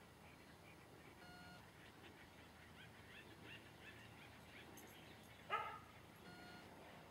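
A dog barks once, a short bark about five and a half seconds in, against faint background with a few small chirps. Two short steady beeping tones sound, about a second in and again near the end.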